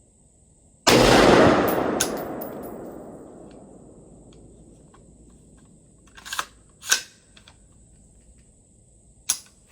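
Diamondback AR-15 rifle firing about a second in: a sudden loud blast that stays loud for under a second, then dies away over about three seconds. A few sharp clicks follow later.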